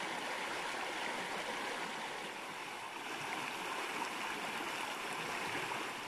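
A river flowing over rocks: a steady rush of water.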